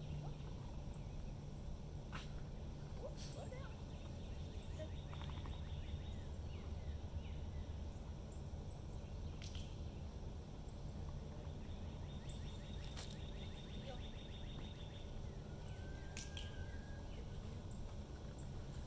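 Outdoor ambience: small birds chirping now and then, with one trill lasting a couple of seconds a little past halfway, over a steady low hum. Several sharp clicks are scattered through it.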